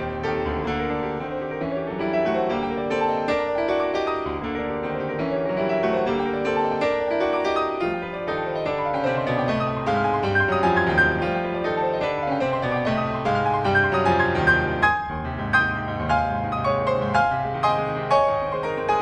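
Background piano music, a continuous run of quick notes.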